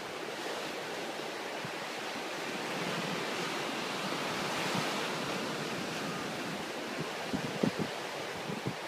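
Ocean surf breaking and washing up the beach, a steady rush that swells in the middle. Wind buffets the microphone in a few short low thumps near the end.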